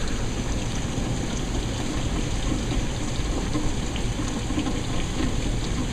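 Heavy rain falling steadily, with a few faint ticks from the last hailstones as the hailstorm dies down.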